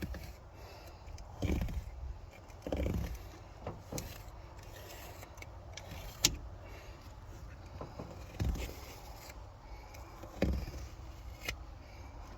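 Hands working on seat parts: scattered soft thumps and scrapes, with a sharp click about six seconds in.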